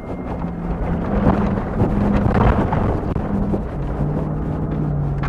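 Inside a 4x4 SUV driving over sand dunes: engine running under a heavy rumble of the body and tyres, with wind buffeting through an open window. The rumble swells about a second in and eases off near the end.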